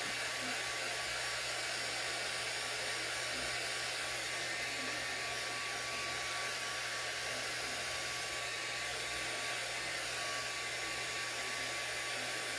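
Small handheld hair dryer running steadily, an even rushing blow with a faint steady whine, drying a fresh watercolor wash on a sketchbook page.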